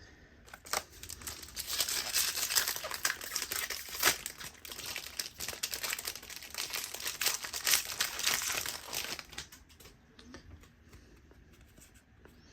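Plastic-foil trading card pack wrapper crinkling as it is torn open and handled, for about nine seconds, then fainter rustling and light ticks of cards being handled.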